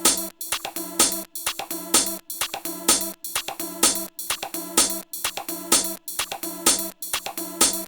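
Electronic background music with a steady drum-machine beat and sustained synth notes.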